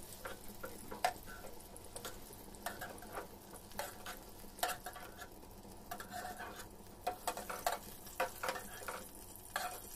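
Steel spatula scraping and clinking against a frying pan in irregular light strokes as fried pointed gourds are lifted out of the hot oil, over faint sizzling of the oil.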